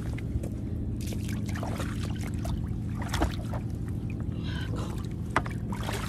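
Shallow tide-pool water splashing and trickling as a gloved hand gropes through it, with a few sharp clicks and knocks, over a steady low rumble.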